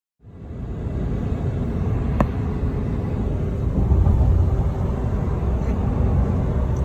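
Steady low rumble of road and engine noise from a moving truck, with one short click about two seconds in.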